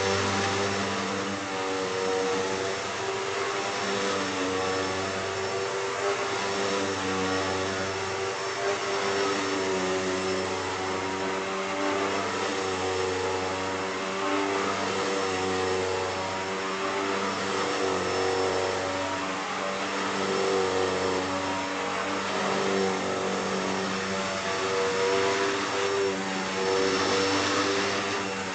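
2008 Hoover Deluxe Elite Rewind U5509-900 upright vacuum cleaner running, with a new drive belt fitted. The motor runs loud and continuously, its pitch shifting up and down repeatedly.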